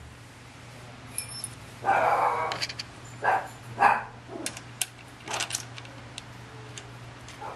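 Metal hex (Allen) key clicking and scraping as it is picked up and turned in a bicycle stem's headset top-cap bolt, snugging the headset. It makes a few short scrapes and scattered clicks over a steady low hum.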